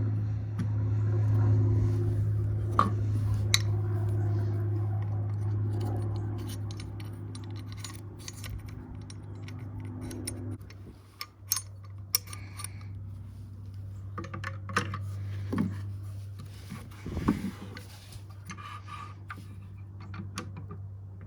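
Metal clicks and clinks of AK rifle parts being handled and fitted together, over a steady low hum.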